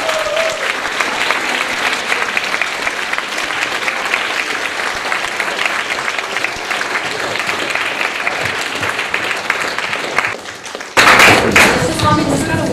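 Audience applauding, many hands clapping in a dense, steady patter that dies away about ten seconds in, followed by a sudden, short and louder burst of sound.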